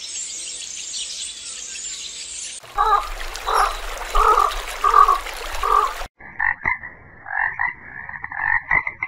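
A steady high hiss at first, then frogs croaking: five evenly spaced croaks, followed by fast, repeated chirping calls.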